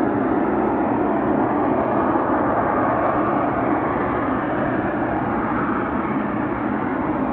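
Loud, steady drone of an unexplained noise in the sky, like an aircraft approaching but without a clear pitch.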